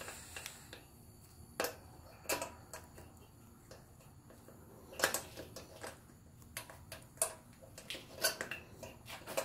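Light metallic clinks and knocks from a Volkswagen Beetle rocker arm assembly, 1.4-ratio rocker arms and shims on their shaft, being worked by hand onto the cylinder head studs; about a dozen irregular clicks with gaps between them.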